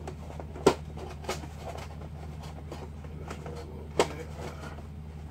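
Two sharp knocks, about a second in and again near four seconds, with a fainter tap between, over a steady low hum: a cardboard box and a car trim part being handled while packing.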